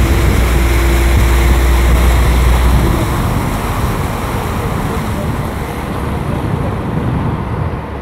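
Steady rumble and rushing noise aboard a harbour ferry underway: the boat's engine and water. The deep part of the rumble drops away about three seconds in.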